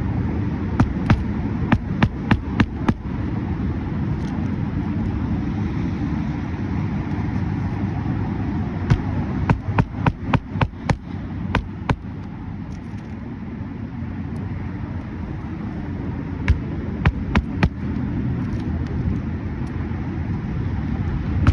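Tool knocks from shingle roof repair work: runs of sharp knocks, several a second. The runs come about a second in, around ten seconds in, and again around seventeen seconds in, over a steady low rumble.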